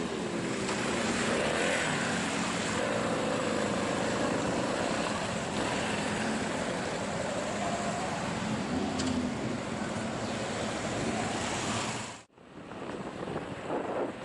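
Motorcycle engine running while riding, mostly buried under heavy wind noise on the microphone, with some rising and falling engine pitch. The sound cuts off abruptly about twelve seconds in.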